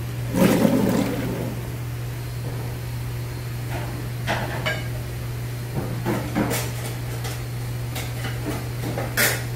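Steady low hum of kitchen ventilation under scattered knocks and clatter of kitchenware. The loudest clatter comes about half a second in, followed by a few short knocks and clicks.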